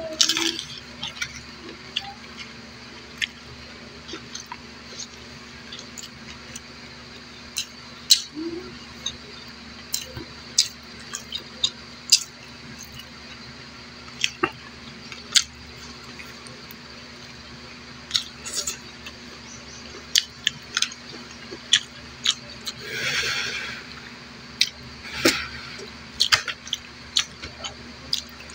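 Close-up eating by hand: irregular wet mouth clicks and smacks while chewing, with one longer, noisier burst about two-thirds of the way through.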